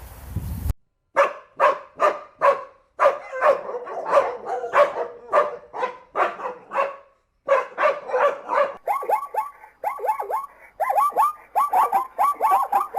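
A dog barking over and over, about two to three barks a second, with a short pause midway. From about two-thirds in, the barks give way to quicker yelps that drop in pitch. A brief rush of wind noise cuts off in the first second.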